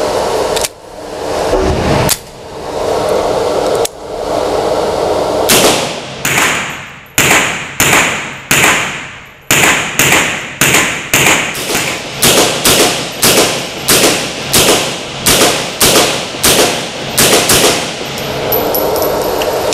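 Sig Sauer MPX sub gun firing single shots on an indoor range, each sharp crack followed by echo off the range walls. It starts with a few spaced shots, then settles into a steady string of about two shots a second.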